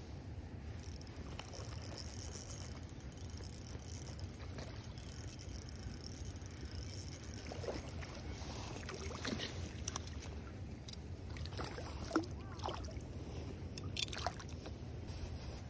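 A hooked trout splashing and thrashing at the water's surface as it is reeled in, a run of irregular splashes beginning about eight seconds in, over a steady low rumble.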